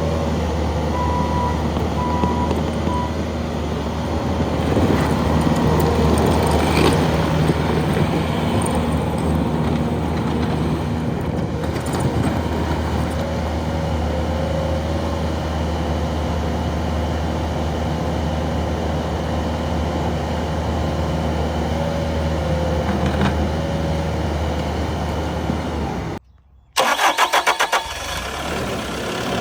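Diesel engine of a Bobcat T770 track loader running steadily. Near the end it stops abruptly, the starter cranks it with a rapid clatter for about a second, and it catches and settles back to idle.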